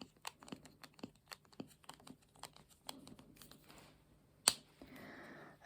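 A string of light close-up taps and clicks, about two or three a second, with one sharper, louder click about four and a half seconds in, followed by a short soft rubbing sound.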